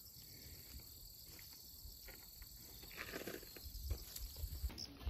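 Faint steady chorus of insects in summer grass, a continuous high-pitched trill. In the second half come soft scuffs and rustles, like small steps on gravel.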